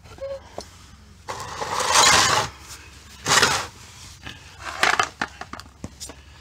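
Oil drain pan scraped across a concrete floor into position under the car, in three scrapes, the longest and loudest about a second and a half in, with a few light knocks and clicks between them.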